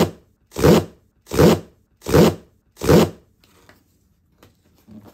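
Cardboard box's zip tear strip being ripped open in five pulls, each a rasping tear of about half a second, evenly spaced less than a second apart. Faint handling of the box follows.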